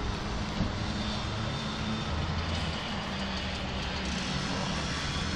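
Steady city street traffic noise with a low engine hum.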